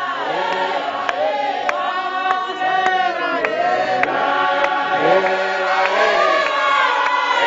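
A large church congregation singing together, many voices at once.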